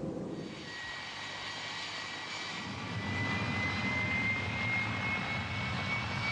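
Jet aircraft engine running: a thin high whine drifting slightly upward over a rumble that grows louder about three seconds in.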